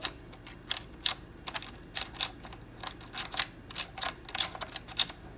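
Irregular small clicks and taps of metal parts being handled: a SmallRig HDMI/USB-C cable lock clamp being tried against the camera cage while lining up its screws.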